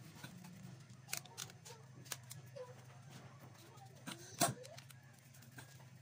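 A few short, sharp clicks of a screwdriver against a washing-machine gearbox housing, the loudest about four and a half seconds in, over a steady low hum.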